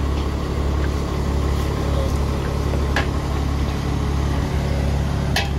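Truck-mounted crane's engine idling steadily, with two short sharp clicks about three seconds in and near the end.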